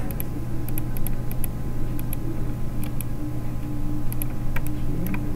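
Computer mouse clicking: repeated short sharp clicks, many in quick pairs, over a steady low hum.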